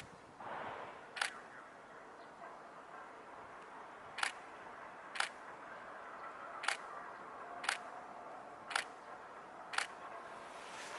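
Still-camera shutter clicks, single frames fired one at a time: a click at the start, another about a second in, then a run of clicks roughly once a second from about four seconds in.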